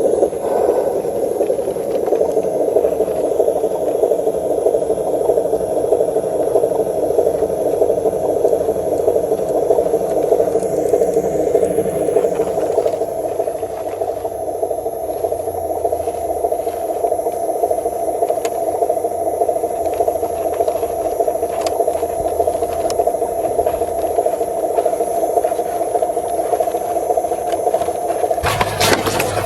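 Homemade RC truck's small electric motor and gearbox running steadily with a rattling, grinding buzz, with a few knocks near the end.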